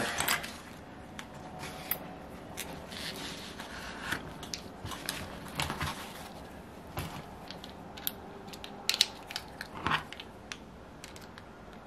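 Scattered small clicks and taps of a screwdriver and small metal engine parts being handled on a bench mat while the carburettor is unscrewed and taken off a model glow engine.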